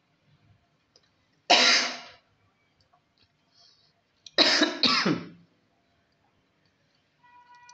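A person coughs: one cough, then a double cough about three seconds later.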